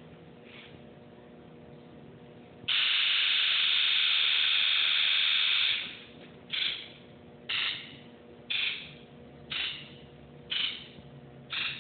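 1997 Ford F-250's 7.3 L Power Stroke diesel injectors buzzing under a scan-tool buzz test. All injectors fire together in one steady buzz about three seconds long, then each injector buzzes on its own in turn, one short buzz about every second. This is what a good test should sound like.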